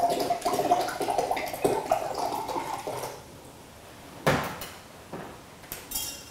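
Water poured from a plastic bottle into a glass beaker, splashing and gurgling for about three seconds. Then a single knock, followed by a few light clicks as multimeter probes are handled at the beaker.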